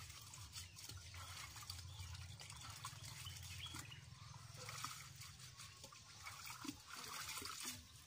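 Faint splashing and trickling of water as hands work inside a large clay pot, with small irregular drips and sloshes.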